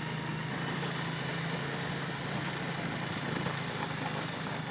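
A motor vehicle's engine running steadily, heard as an even low hum with a faint background hiss.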